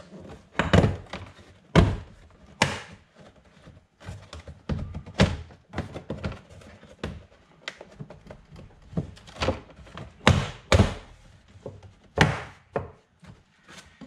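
Black plastic interior trim panel of a C7 Corvette coupe being jerked back and forth against its hard retaining clips, giving an irregular string of thunks and knocks. The jerking is meant to make the clips pop loose without breaking them.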